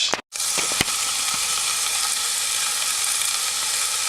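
Food sizzling steadily in a hot pan, with a couple of short clicks under a second in.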